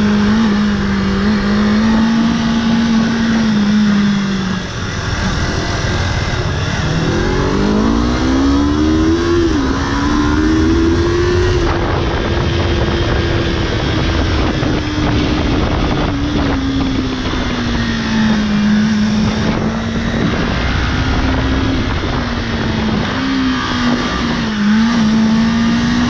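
Motorcycle engine running under way, its pitch rising and falling with the throttle. It eases off about a fifth of the way in, then revs up in a steady climb through the next few seconds.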